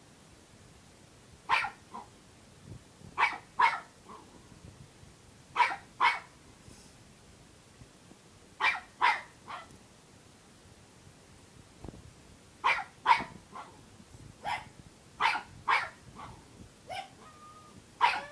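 Puppy barking in short, high yaps, mostly in quick pairs or threes with pauses of a second or more between groups: demand barking for play.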